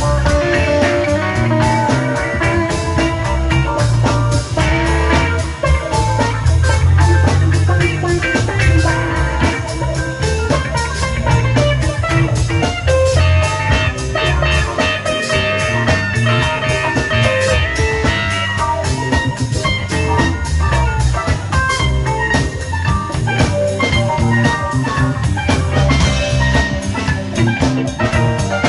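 Live rock band playing an instrumental jam passage: electric guitars, electric bass, drum kit and keyboard.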